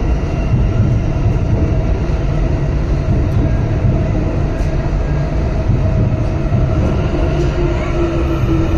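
Metro train running through the station: a steady, loud rumble with faint whining tones, one of them rising briefly near the end.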